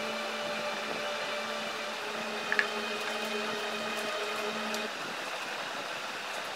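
Steady background hiss with a faint hum, broken once by a brief sharp sound about two and a half seconds in.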